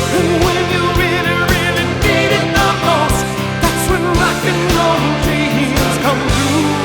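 Rock music: a steady drum beat under held chords, with a wavering lead melody line above.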